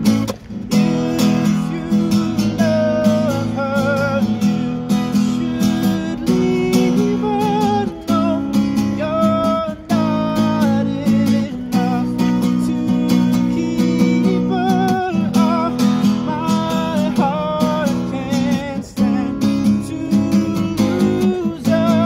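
Acoustic guitar strummed and picked, with a man singing a melody over it and holding some notes with vibrato.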